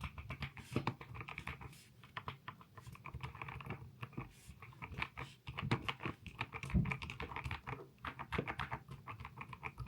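Typing on a Womier SK80 Pro 75% wireless mechanical keyboard with jelly keycaps: a quick, irregular run of keystroke clacks.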